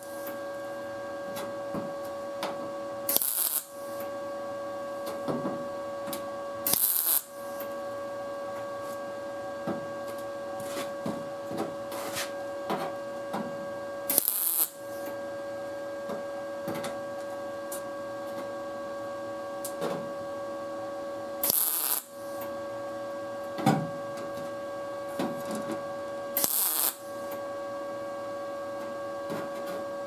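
An ARCCAPTAIN MIG 200 MIG welder laying short tack welds on a thin sheet-metal patch panel: five brief bursts of arc noise a few seconds apart. A steady hum with several tones runs between the tacks, with light taps and clicks as the torch and panel are handled.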